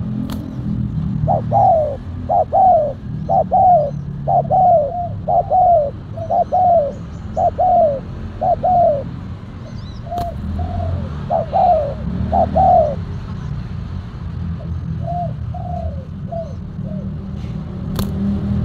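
Spotted doves cooing: a long series of short arching coos, mostly in twos and threes, then a few weaker ones, with a sharp wing clap near the end as the two doves clash.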